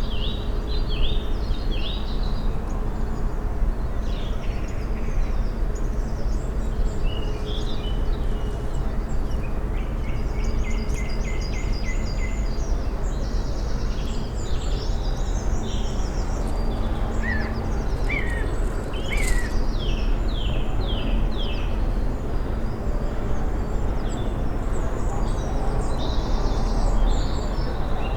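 Several woodland songbirds singing at once, short repeated phrases and trills overlapping one after another, over a steady low background rumble.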